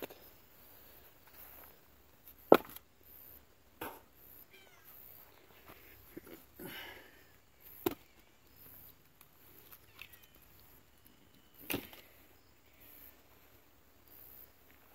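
Split firewood logs knocking against each other as they are stacked on a woodpile: four sharp knocks a few seconds apart, the loudest about two and a half seconds in.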